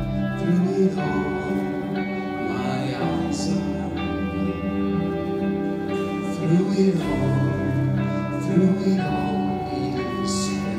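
Live worship band music through a church sound system: a slow song with sustained chords and guitar under a singing voice.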